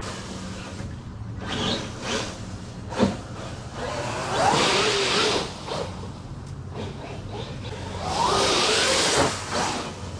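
Electric motor of a large RC car whining up and down in pitch as it accelerates, twice, each time with a loud rush of dry leaves being ploughed through. A sharp knock about three seconds in.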